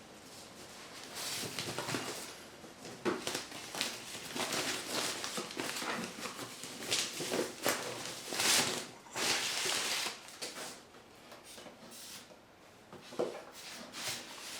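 Packaging being handled: rustling and crinkling of wrapping and paper, with scattered clicks and light knocks, busiest for the first ten seconds and quieter near the end.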